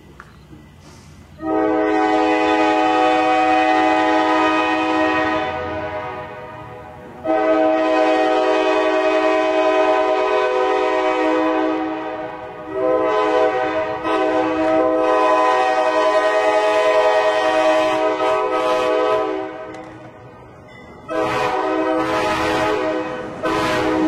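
Approaching diesel locomotive's multi-chime air horn sounding several notes at once in a series of long blasts, with a shorter blast near the end and another starting right after it.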